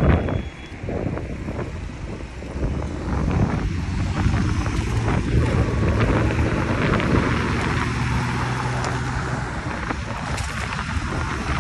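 A car engine running as it drives along, a steady low hum that shifts slowly in pitch, with wind buffeting the microphone.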